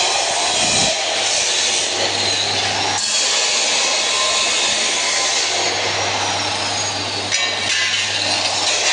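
Angle grinder cutting, a steady high-pitched hiss with a low hum underneath.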